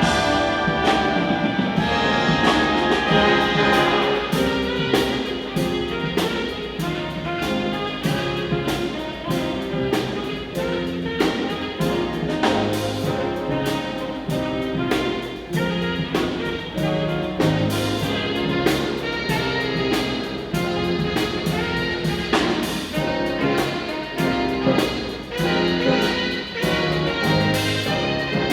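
A live high school band playing: brass and saxophones over a steady drum beat, in a jazz-like style.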